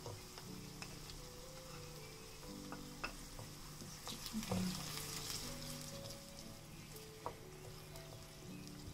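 Chopped onions and crushed garlic sizzling in hot ghee in a tiny metal karahi, stirred with a wooden spoon that clicks and scrapes against the pan. The sizzle swells for a second or so about halfway through.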